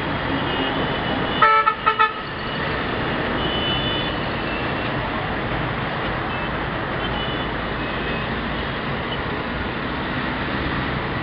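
Busy road traffic with a steady rumble of engines and tyres. About a second and a half in, a vehicle horn honks once, then twice more in quick short toots.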